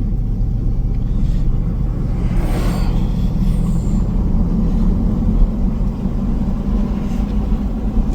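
A 2002 Chevy Silverado driving, heard from inside the cab as a steady low engine and road rumble, with a brief rushing hiss about two and a half seconds in. No hub noise stands out: the freshly replaced wheel hub sounds good.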